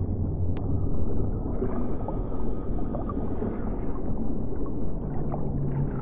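Water churning and rumbling, heard muffled and deep, with a low steady hum and small scattered bubbling pops.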